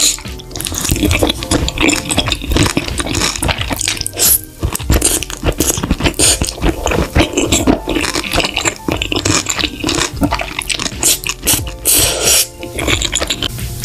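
Close-miked eating sounds of creamy pasta: wet chewing with many small mouth clicks and smacks.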